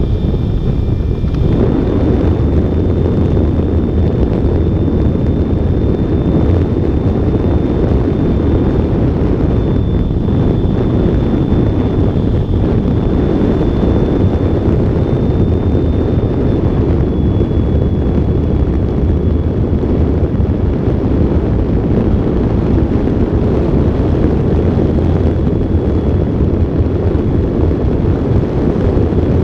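Loud, steady rush of wind over a wing-mounted camera's microphone on an electric ultralight plane in cruise flight. A thin, steady high whine runs through it and wavers slightly.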